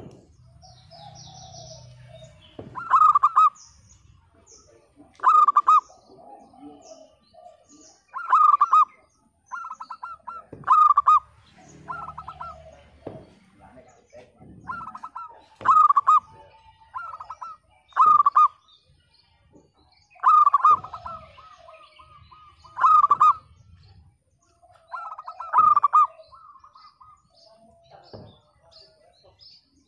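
Zebra dove (perkutut) cooing its song over and over, a dozen or so staccato phrases of rapid pulsing notes, one every two seconds or so. Fainter chirps of other small birds sound between the phrases.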